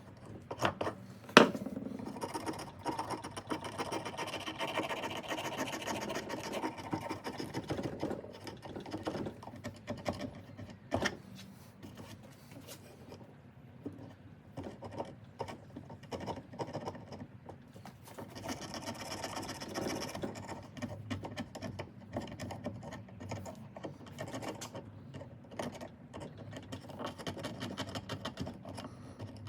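Rapid scratching and scraping at the soft grip material of a 1/2-inch ratchet handle as it is removed. Two sharp knocks: the loudest about a second and a half in, another about eleven seconds in.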